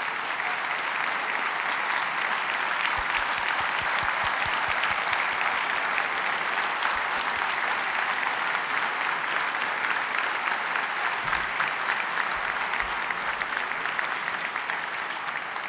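Large audience in a big hall applauding: a dense, steady clatter of many hands clapping that tapers off near the end.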